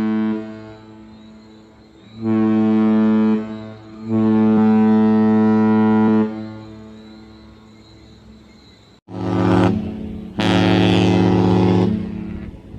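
Deep cruise ship horn blasts, one steady tone rich in overtones: the end of one blast at the start, then a blast of about a second and one of about two seconds. After an abrupt break, a short blast and a longer one of about a second and a half.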